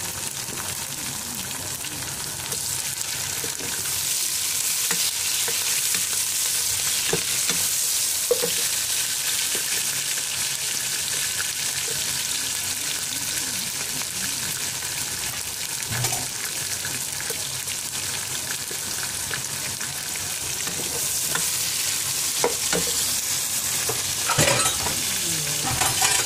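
Sliced onions, chopped tomatoes and green chillies sizzling steadily as they fry in oil in a large black karahi. They are stirred with a long-handled spoon that knocks and scrapes against the pan now and then, more often near the end.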